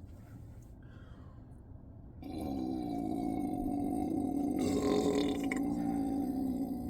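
A person's long, drawn-out belch, brought up by gas from chugged carbonated sparkling water. It starts about two seconds in, holds a steady low pitch and is still going at the end.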